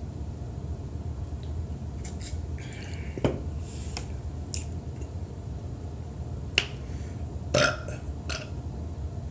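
A woman drinking ginger ale, with a few sharp clicks of the mouth and throat as she sips and swallows, then a short burp near the end brought up by the soda's fizz.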